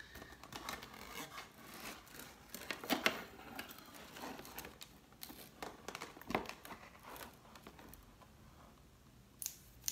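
Sheets of paper rustling and crinkling as they are handled, with scattered sharp taps and clicks from a translucent plastic document folder. The loudest handling comes about three seconds in and again near six seconds. It quietens after that, with a few sharp clicks near the end.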